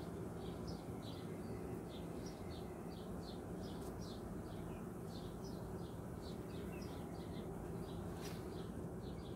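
Steady low hum of honey bees flying about an opened hive, with a small bird chirping repeatedly over it, a few short high chirps a second.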